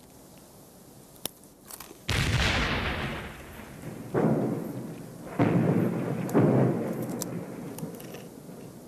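A series of heavy explosions, like shellfire: four blasts, the first about two seconds in and the rest over the next four seconds, each followed by a long rolling decay.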